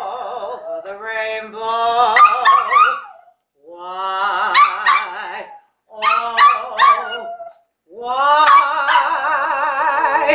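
A small white dog howling along with a woman singing with vibrato, their voices rising and wavering together in four long phrases with short breaks between.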